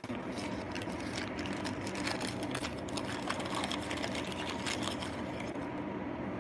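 Packing paper and bubble wrap crinkling and rustling as a hand digs through a shipping box, dying down near the end, over a steady background hum.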